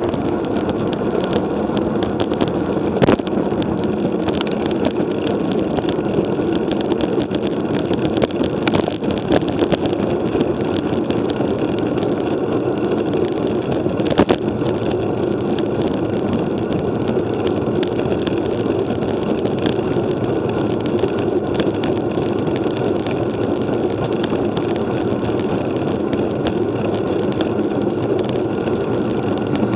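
Steady road and wind noise from a road bicycle ridden on a climb, with a few sharp clicks, one about three seconds in and one about fourteen seconds in.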